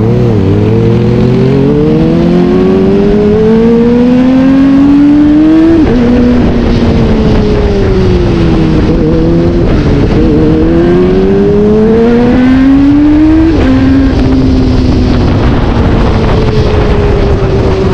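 Kawasaki sport bike's inline-four engine accelerating hard at high revs, its pitch climbing slowly and dropping sharply at upshifts about six and thirteen and a half seconds in, then running on near-steady.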